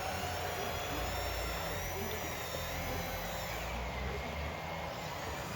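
Electric motors and hydraulic pumps of RC model construction machines whining, several high tones gliding up and down together as the machines speed up and slow down, over a low rumble.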